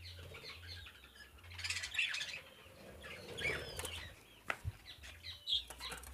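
Budgerigars chirping in scattered short calls, with a few sharp knocks a little past the middle.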